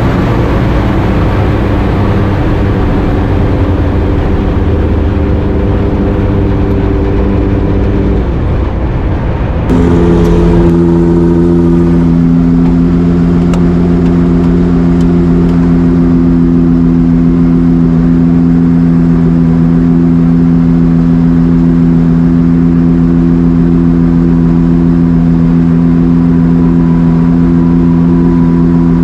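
Homemade 5-litre V12 land speed engine heard from the cockpit, running with heavy wind rush as the car slows from speed; its note drops about eight seconds in. About ten seconds in it switches abruptly to a steady, even idle at around 1,700 rpm.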